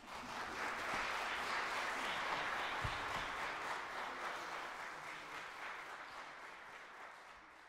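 Audience applauding at the end of a band piece. The clapping swells in the first second, then slowly fades.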